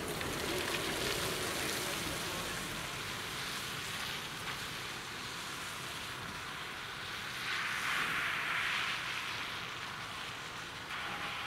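Road traffic tyre noise at a level crossing: a van driving over the crossing at the start, then another vehicle passing with a swell of tyre hiss about eight seconds in.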